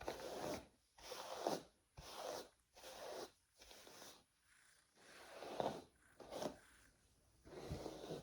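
Repeated rasping strokes, roughly one a second, from hair being worked on by hand.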